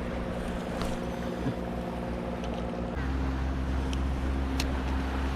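A motorboat engine running steadily, its tone changing about three seconds in, with a few faint ticks over it.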